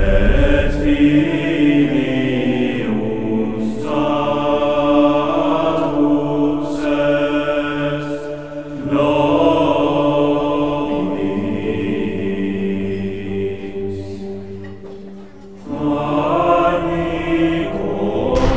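Choral music with voices singing slow, sustained, chant-like phrases over a steady held note, with brief pauses between phrases about nine and fifteen seconds in.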